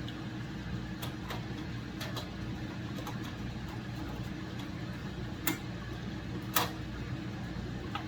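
Light clicks and taps of plastic ice-maker parts being handled, with two sharper knocks about five and a half and six and a half seconds in, over a steady low background hum.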